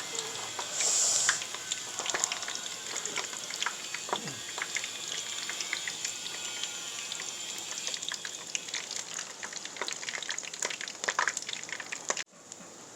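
Food deep-frying in hot oil: a steady sizzle with dense, irregular crackles and pops. It cuts off abruptly about 12 seconds in.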